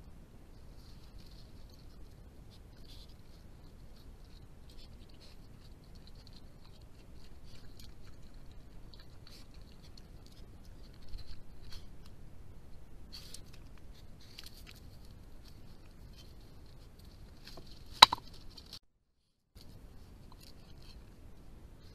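Badgers rummaging right at a trail camera, with faint rustling and scratching. Near the end comes one sharp thud: a brick holding down netting over a strawberry patch being knocked off.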